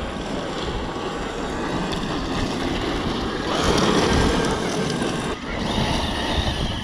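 Large brushless electric RC trucks driving over loose gravel and dust: a steady, noisy rush of tyres and stones, louder for about a second from three and a half seconds in.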